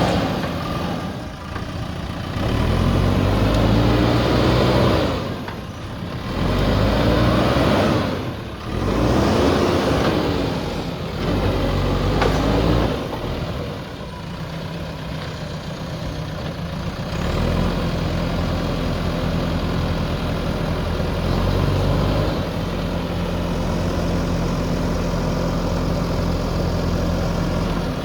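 JCB backhoe loader's diesel engine revving up and falling back in repeated surges of two to three seconds each. About halfway through it settles into a steady, even run.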